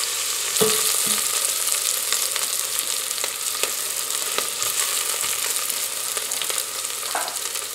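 Chopped onion and garlic sizzling as they soften in hot olive oil in a stainless steel pot: a steady high hiss with scattered small crackles. A silicone spatula stirs them, scraping the pot now and then.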